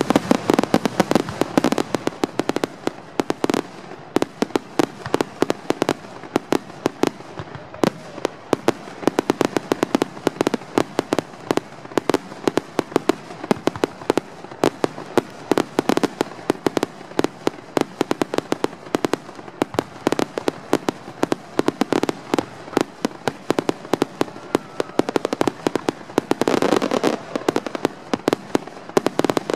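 Aerial fireworks display: a continuous barrage of bangs and crackling from bursting shells, several reports a second without pause, with a louder, denser flurry near the end.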